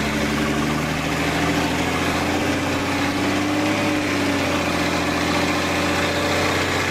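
6x6 army truck's diesel engine running hard under acceleration, heard from inside the open cab. Its pitch climbs slowly, dips slightly about four seconds in, then holds steady.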